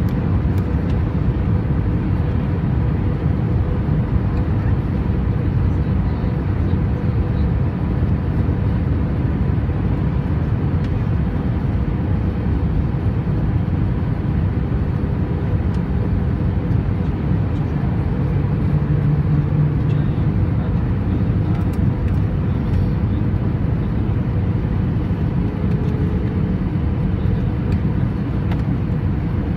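Cabin noise in an Airbus A320 descending on approach with flaps out: a steady, even, low rush of engines and airflow, with a faint steady hum. A slightly stronger low drone comes through briefly about two-thirds of the way through.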